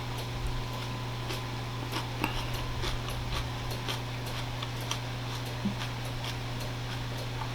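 Close-miked eating of raw vegetables: scattered short crunches, clicks and mouth smacks over a steady low hum.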